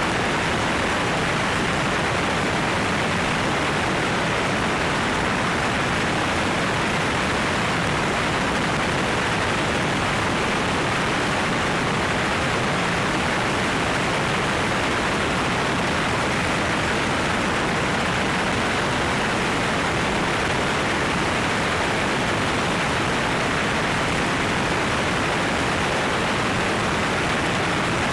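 Steady rushing wind noise from airflow over a camera mounted outside a small floatplane in flight, with no distinct engine or propeller tone standing out.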